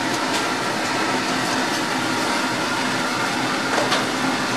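Oil sizzling steadily in a deep fryer as a kakiage vegetable tempura fritter fries, over a steady mechanical hum. A short click of the metal tongs comes near the end.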